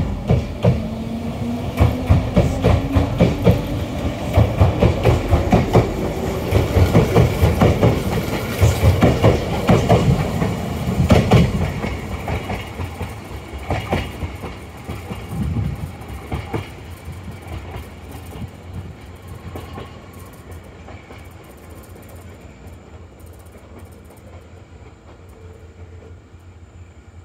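Kintetsu 6020-series electric train pulling away: its motor hum rises in pitch as it gathers speed, and its wheels clack in a quick rhythm over the rail joints, fading out after about twelve seconds. A fainter train rumble follows.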